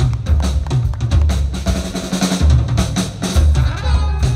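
Live swing band playing, the drum kit busy with snare hits and a strong bass-drum beat under guitar. A horn section of trumpet, trombone and saxophone comes in with held notes near the end.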